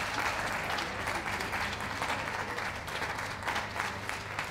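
Audience applauding, slowly dying down.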